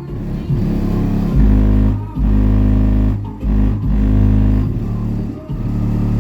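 Bass-heavy music played loud through a pair of Hifonics ZRX 15-inch subwoofers, with long deep bass notes that drop out briefly a few times.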